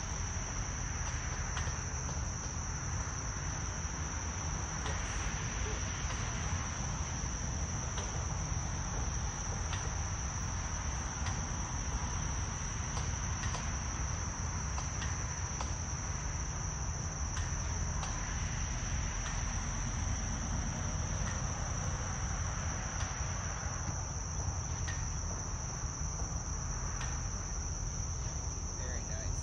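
A steady, unbroken high-pitched insect chorus from the surrounding grass and trees, over a low steady rumble.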